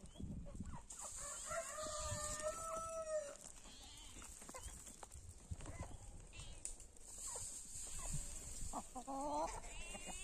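A rooster crowing: one long, held call about a second and a half in, with a shorter wavering animal call near the end.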